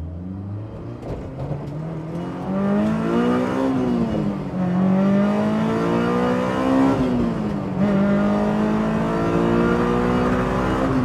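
Honda S2000 CR's 2.2-litre inline-four accelerating hard, heard from inside the cabin. The revs climb, fall sharply at upshifts about four and seven seconds in, then climb again more slowly.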